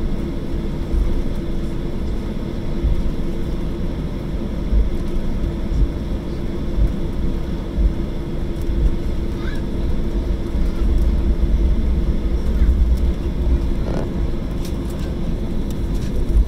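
Jet airliner taxiing, heard from inside the passenger cabin: a steady low rumble with a constant hum and a few light knocks.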